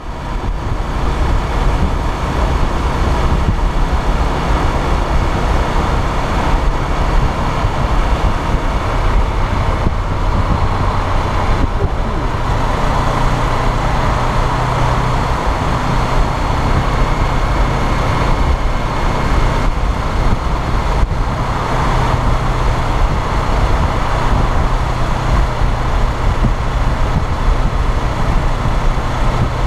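Honda CBR500R's parallel-twin engine running at a steady cruise, heard from a tank-mounted camera with heavy wind rush over the microphone.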